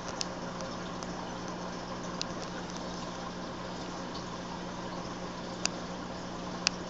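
Reef aquarium equipment running: a steady low hum with the constant noise of circulating water, broken by four short, sharp clicks.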